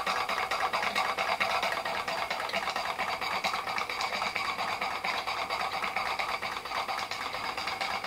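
Märklin 16051 compound twin-cylinder horizontal stationary steam engine running on live steam, its quick mechanical beat fast and even.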